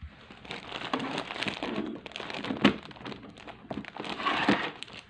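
Clear plastic wrappers around squishy toys crinkling and rustling as they are handled, with a few light knocks among them.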